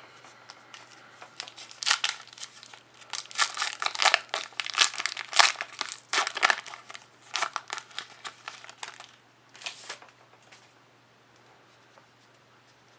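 A trading card pack's wrapper being torn open and crinkled by hand, in a run of crackling rustles that stops a few seconds before the end.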